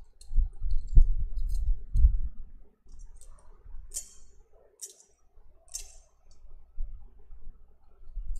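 Metal thurible (censer) swung on its chains, clinking three times about a second apart, as used for incensing the Gospel book. Dull low thumps in the first two seconds.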